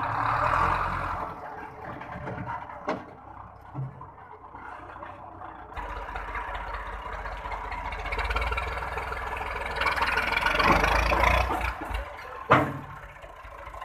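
Farm tractor's diesel engine running and revving under load as it tries to drive its rear wheels out of soft ground, rising in level toward the end, with a sharp knock near the end.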